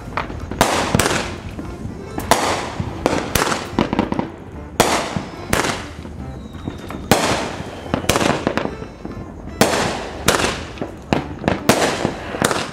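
Aerial fireworks bursting overhead: an irregular string of sharp bangs, about one or two a second and sometimes overlapping, each trailing off in a short fading echo.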